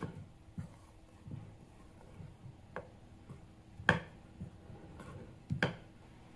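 Metal spoon clinking and scraping against a glass mixing bowl while stirring cream into flour for a dough. A few scattered light clinks, the sharpest about four seconds in and a close pair a moment later.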